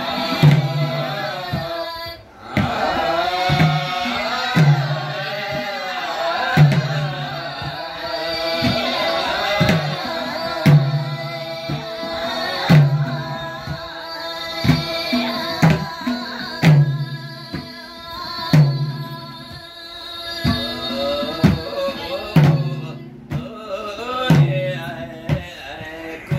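Women singing a slow song together to a madal, the Nepali two-headed hand drum, which keeps time with a deep stroke about every two seconds and lighter slaps between.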